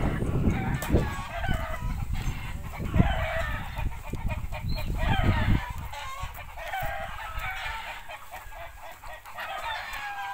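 Chickens clucking and calling repeatedly, short high calls one after another. A low rumble on the microphone over the first half stops about five and a half seconds in.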